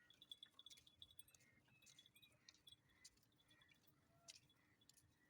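Faint, high-pitched chirps and squeaks from small animals, short and scattered, with a few faint clicks among them.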